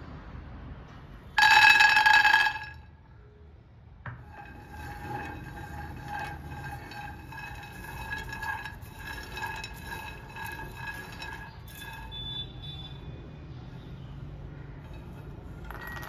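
Raw peanuts poured into a metal nonstick frying pan, a loud burst of clattering that sets the pan ringing, about a second and a half in. From about four seconds the peanuts rattle and roll around the pan in a long run of lighter clinks until near the end.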